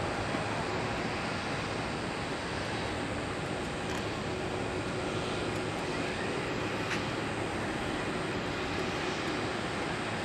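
Boeing 747-400F freighter's jet engines running steadily at low power as the aircraft rolls along the runway after landing: an even rush with a faint steady hum underneath.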